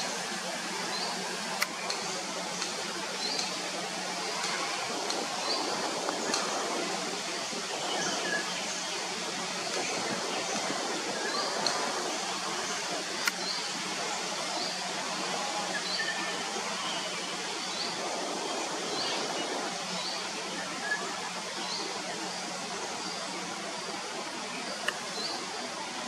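Steady rush of water flowing over rocks, with a short high chirp repeated about once a second and a faint low hum underneath.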